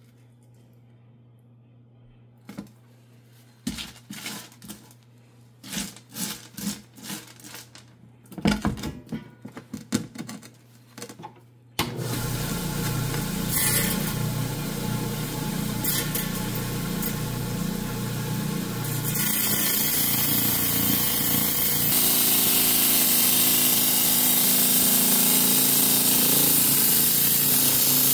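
Knocks and scrapes of a rock being handled on the saw's plastic grid table, then, about halfway through, a Hi-Tech 10-inch diamond lapidary saw switches on suddenly and runs with a steady whir and water spray. Toward the end the blade bites into the jasper and chalcedony stone and the sound grows louder and hissier.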